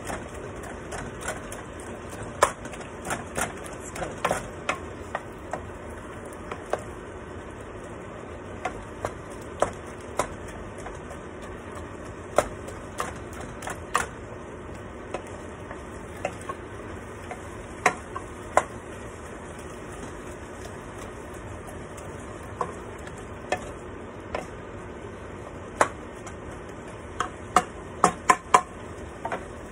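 Wooden spoon stirring ground beef in a nonstick pot, with irregular knocks and scrapes of the spoon against the pan over a steady low sizzle of the meat cooking. A quick run of several knocks comes near the end.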